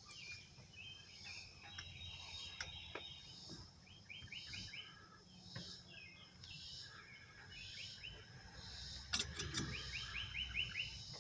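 Faint outdoor background of birds chirping in short, rapid trills of five or six high notes, repeating every few seconds. About nine seconds in there are a few sharp clicks as the brass valve-core removal tool is handled.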